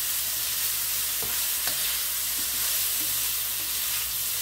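Sliced zucchini and squash sizzling steadily as they sauté in a hot pan, with a few light scrapes of a utensil stirring them.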